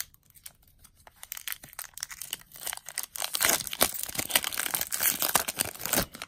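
Foil wrapper of a Magic: The Gathering booster pack crinkling and tearing as it is ripped open by hand. The crackling builds from about a second in and is loudest over the last three seconds.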